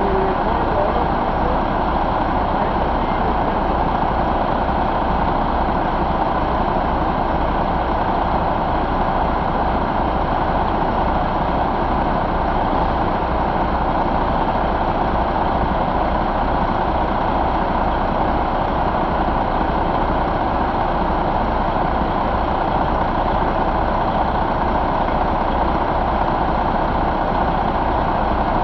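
Detroit Diesel Series 60 14.0-litre inline-six diesel engine idling steadily, with an even low throb.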